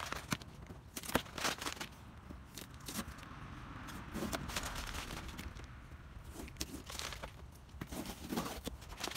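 Masking tape being peeled by hand off the edges of a headlight lens: short pulls with a few sharp clicks, and a longer steady pull in the middle.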